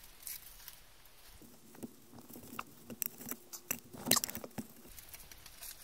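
A knife and plastic-gloved fingers working inside the belly of an isaki (threeline grunt) being gutted, giving scattered small wet clicks and crackles, the loudest about four seconds in.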